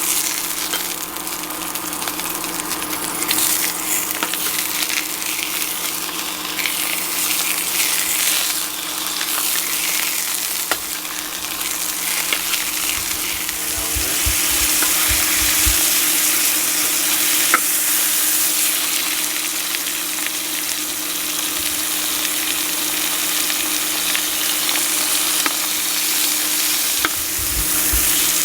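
Sliced sausages frying in a pan, sizzling with a steady hiss, over a steady low hum.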